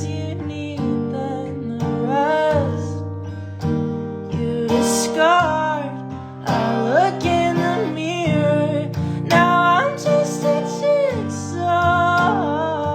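Acoustic guitar chords played under a sung melody, the voice gliding and holding long notes.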